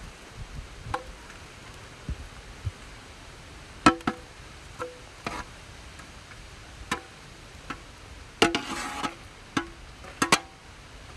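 Steel ladle knocking and scraping against a large aluminium pot while cooked curry is scraped out of it: a dozen or so sharp metallic clinks that ring briefly, with a longer scrape a little past the middle and a quick double clink near the end.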